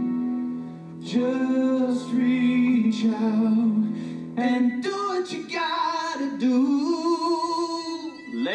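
A song from a stage musical: singing over instrumental backing. Long held notes come first, then a moving melody with wavering held notes in the second half.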